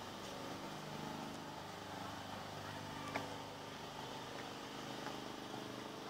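Steady hum of an engine running, with faint voices in the background and one sharp click about three seconds in.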